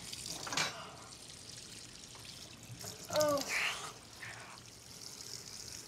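Kitchen tap running, a steady trickle of water. A brief voice sound comes about three seconds in.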